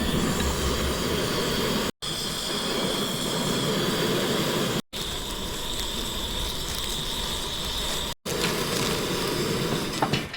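Portable gas hiking stove burner running with a steady hiss, broken off three times by brief silences.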